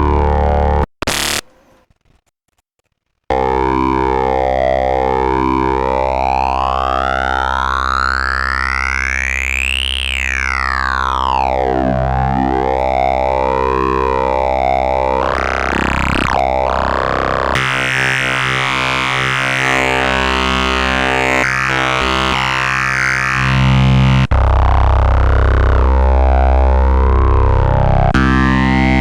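Phase-modulated formant-oscillator synthesizer playing held, heavily saturated drone notes. The first note cuts off about a second in. After two seconds of silence a new note sounds, its overtones sweeping up to a peak about ten seconds in and back down. The tone changes colour near the middle and grows louder and lower toward the end.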